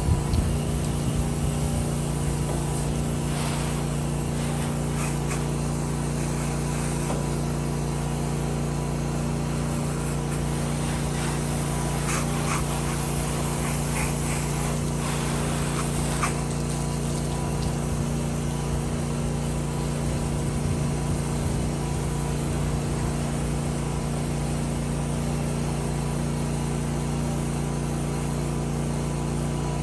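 Gas engine of a pressure-washing rig running steadily at constant speed, a low even hum that holds one pitch, with a few faint brief crackles around the middle.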